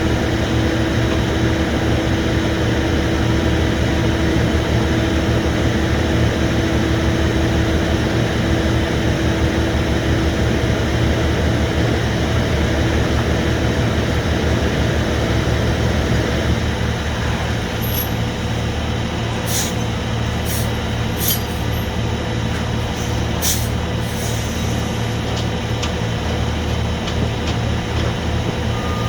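Heavy rotator tow truck's diesel engine running steadily. A steady tone over the rumble stops about two-thirds of the way in, and several sharp clicks follow.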